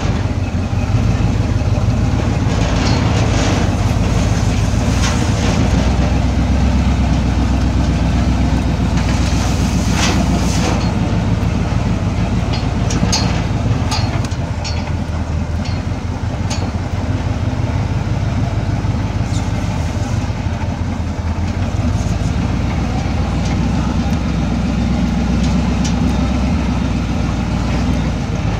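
Off-road vehicle driving slowly over a rough dirt trail: a steady low engine and road rumble, with scattered clicks and knocks as it goes over the bumps.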